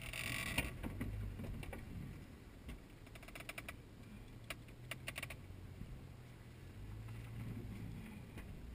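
Jeep engine running low and steady, heard from inside the cab, with a few short clicks about three and a half and five seconds in.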